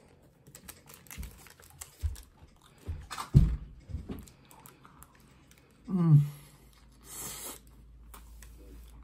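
A person biting into and chewing a burger, with soft clicks of chewing and the paper wrapper crinkling near the end. Two short vocal sounds from the eater come a little after three seconds and about six seconds in.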